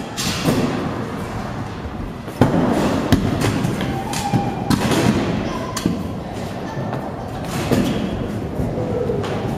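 Kick-scooter and skate wheels rolling and clattering on the skatepark's concrete and ramps, with scattered thumps of decks and wheels landing, the sharpest about two and a half seconds in. Brief children's voices come and go, in a large indoor hall.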